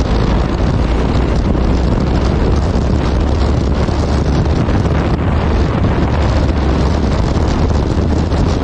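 Wind buffeting the microphone of a moving motorcycle: a steady, loud rush with a deep rumble beneath it, mixed with the bike's running noise.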